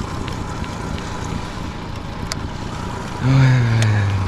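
Honda 30 hp four-stroke outboard running steadily at trolling speed, with water and wind noise. About three seconds in, a man's voice gives a drawn-out sound, falling in pitch, for about a second.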